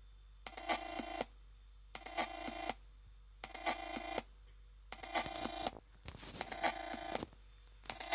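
Weird electronic noise from a Chromebook Pixel running Ubuntu: short buzzy, ringing bursts of many steady tones, each under a second long, repeating about every second and a half with quiet gaps between them.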